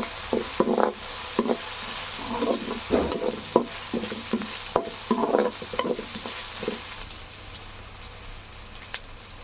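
Onions and ginger-garlic paste sizzling in hot oil in a kadai while a spoon scrapes and stirs them repeatedly, frying off the paste's raw smell. The stirring stops about seven seconds in and the sizzling carries on more quietly.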